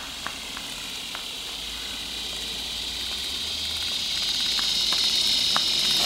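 A high hissing drone that swells steadily louder, with a few scattered faint clicks.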